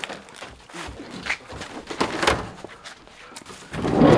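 A metal wire dog crate knocks and rattles as it is loaded into a van. Near the end the van's sliding door is pulled shut, a loud rushing slide that is the loudest sound.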